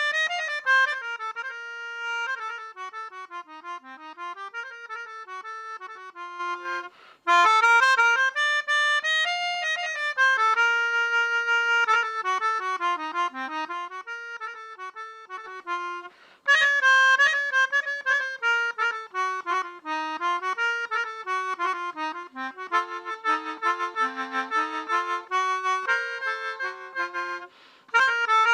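Instrumental music on a free-reed instrument, a sustained melody with chords over a moving lower line, played in phrases that break off briefly three times.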